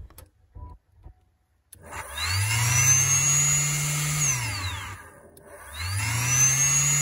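New secondary air injection pump for a Toyota Tundra, run on direct power: its electric blower spins up with a rising whine and runs for about two seconds, then winds down with a falling whine when the power is cut. It starts again about five and a half seconds in. This is how a working pump should sound. It follows a couple of light clicks as the wires are touched on.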